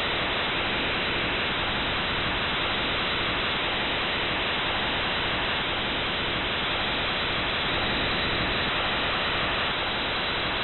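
Steady, unchanging rushing noise with nothing above a sharp upper cutoff, played as the recorded sound of Venus's atmosphere.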